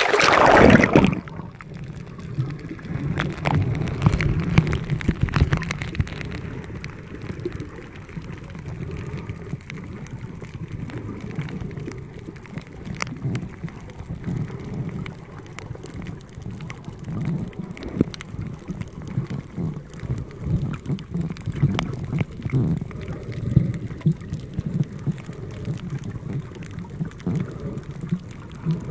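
Camera plunging into seawater with a loud splash about a second in, then the muffled low rumble and scattered crackle of water heard through a submerged microphone.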